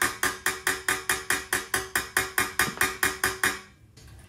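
Dent hammer tapping rapidly and evenly on the mouthpipe of a Wilson euphonium, about four strikes a second, each with a short ring from the tube. The hammer is driving a dent ball along inside the tube to chase the dent out toward the wider tubing. The tapping stops near the end.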